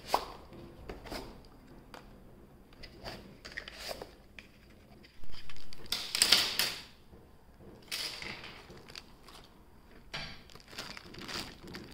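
Unboxing and handling noises from an RC helicopter kit in a foam-lined hard case: scattered clicks and knocks, with a few longer crinkling rustles, the loudest about five to seven seconds in.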